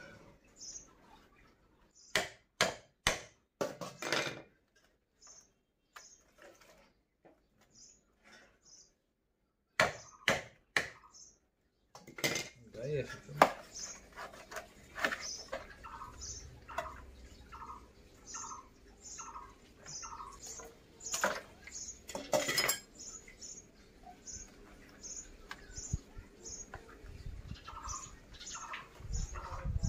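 A knife chopping through a large fish in a steel bowl, with sharp knocks of the blade in clusters a couple of seconds in and again about ten seconds in, and busier cutting from about twelve seconds on. A bird chirps over and over in the background, joined from about sixteen seconds by a lower repeated call.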